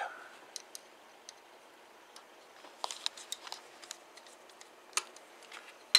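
Screwdriver working a stiff hose clamp on a fuel return hose loose, giving scattered small metallic clicks: a cluster about three seconds in and a sharper click about a second before the end.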